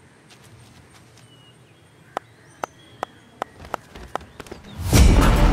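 A run of sharp taps, coming faster and faster, then loud music swells in near the end with a heavy low beat.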